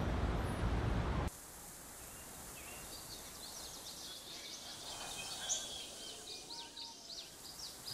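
Street traffic noise that cuts off abruptly after about a second, followed by quiet countryside ambience with many birds chirping in quick, high calls.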